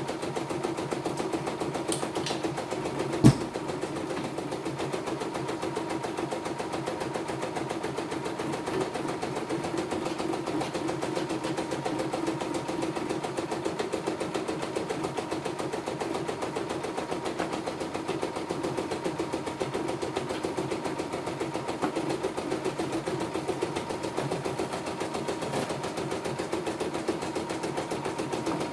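CNY E960 computerized embroidery machine stitching steadily on a test run after repair, its needle running at a fast, even rate while the hoop steps the fabric. A single sharp click about three seconds in.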